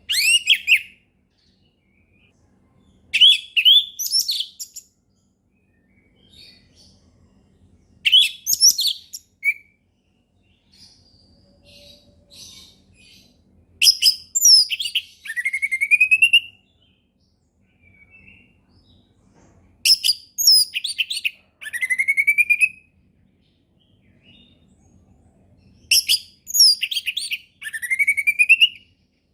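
Orange-headed thrush (anis merah) singing its loud 'ngeplong' song: six short phrases of quick, high notes about six seconds apart. The later phrases end in a rising slurred whistle.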